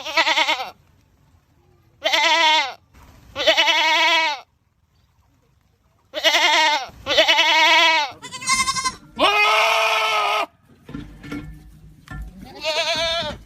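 Goats screaming: a string of about eight loud, wavering bleats, each under a second or so long, with a higher call and then a longer, steadier one past the middle.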